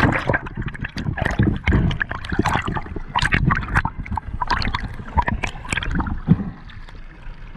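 Seawater sloshing, gurgling and splashing around a camera bobbing at the surface, dipping in and out of the water, as a busy run of irregular splashes.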